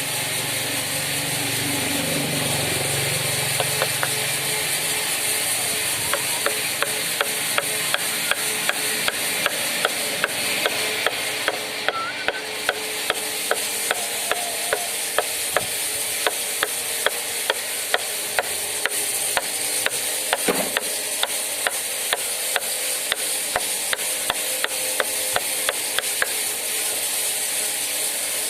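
Wood carving work: short sharp taps at a steady pace, about two a second, over a continuous hiss.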